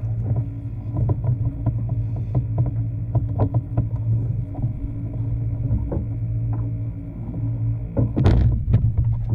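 A steady low motor hum with scattered light clicks and knocks, and a louder clatter about eight seconds in.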